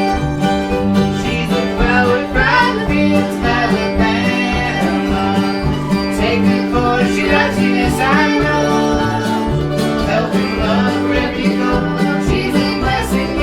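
Bluegrass string band playing live, with guitar and banjo picking over a steady bass line.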